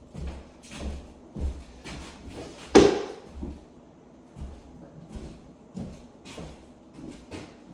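Irregular knocks and thuds of work on hardwood floor boards, several a second, with one louder bang about three seconds in.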